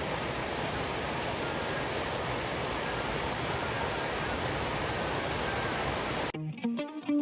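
Steady rushing roar of a waterfall, cut off suddenly about six seconds in by electric guitar music.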